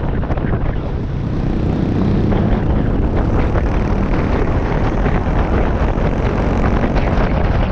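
Small single-cylinder motorbike engine running steadily at road speed, heard from on board with wind rushing over the microphone.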